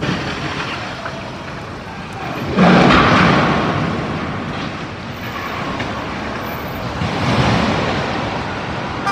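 Street traffic noise with a sudden loud crash about two and a half seconds in, fading slowly, as a burning tower crane's boom breaks off and falls. A second, smaller swell of noise comes about seven seconds in.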